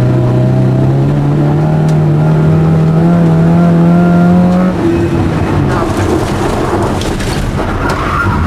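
Lada 2107's engine heard from inside the cabin, pulling hard with its note climbing steadily for about four and a half seconds. The note then breaks off as the throttle is lifted, leaving a few seconds of rougher engine, gravel and tyre noise on the loose surface.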